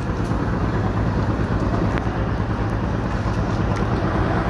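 Fishing boat's engine running, a steady low rumble.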